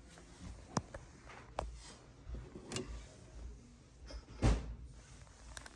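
A few irregular knocks and clicks as an antique wooden steeple clock's case is handled and its door opened to check whether the clock works, with one heavier knock near the end.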